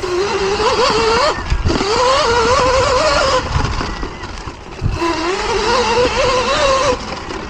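Sur-Ron Light Bee electric dirt bike's motor whining under throttle, its pitch wavering up and down with speed over a steady rush of riding noise. The whine fades out for about a second and a half in the middle, then picks up again.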